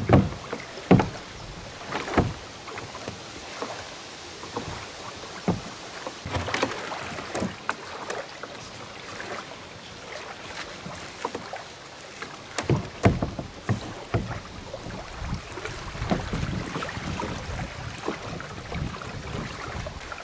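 Scattered knocks and clunks of the seat and gear being handled on a plastic fishing kayak, with a cluster of knocks about thirteen seconds in, over a steady hiss of wind.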